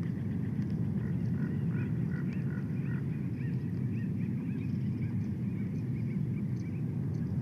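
Bald eagle chirping: a rapid series of short, high, thin calls, several a second, over a steady low rumble.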